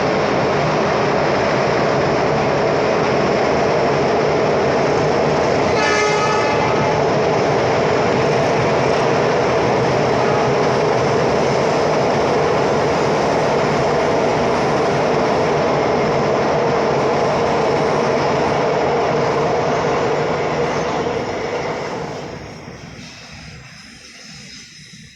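A train running past close by, loud and steady, with a short horn blast about six seconds in; the sound dies away over the last few seconds as it moves off.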